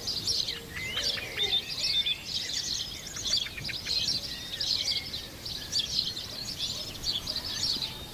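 Many small birds chirping and twittering continuously in a dense, high-pitched chatter, with a faint low dove coo about a second in.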